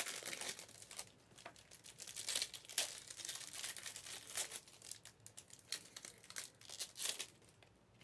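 Trading card pack wrappers crinkling and tearing as packs are opened by hand, in irregular rustling bursts that stop near the end.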